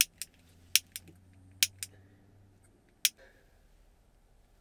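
A series of short, sharp clicks and taps, about seven in the first three seconds, from small hard objects being handled in the hands, followed by a soft brief scrape.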